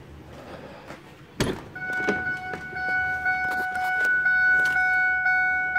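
A sharp thump about 1.4 s in, then the pickup cab's electronic warning chime sounding steadily with about two pulses a second.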